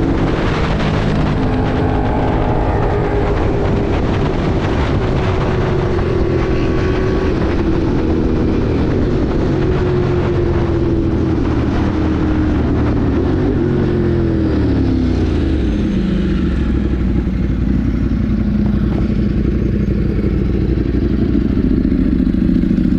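Ducati Monster 1200 R's L-twin engine running under way. About 13 seconds in, its pitch falls as the bike slows, and it settles to a low, steady running note.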